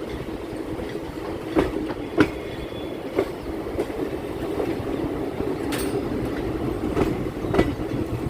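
Chennai MRTS suburban electric train running on the track: a steady rumble with irregular clacks of the wheels over rail joints.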